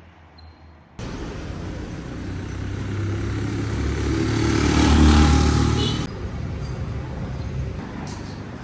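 Road traffic: a motor vehicle's engine and tyre noise start abruptly about a second in and grow louder as it passes close by, then drop off sharply about six seconds in, leaving quieter road noise.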